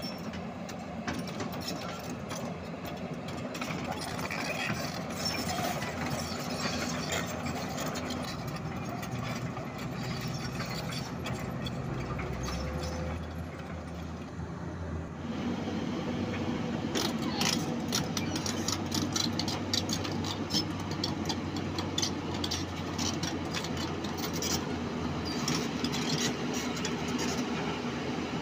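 Hyundai R220LC-7 crawler excavator's diesel engine running steadily. About halfway through it gets louder, and sharp clicks and clatter of metal and stones come in over it as the machine works.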